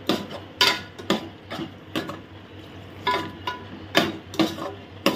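A metal spoon stirring the masala in an aluminium cooking pot, clinking and scraping against the pot's sides in irregular strokes, about two a second.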